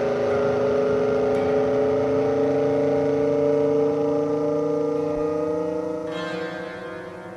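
Background music: a sustained droning chord that slowly rises in pitch, then fades away near the end.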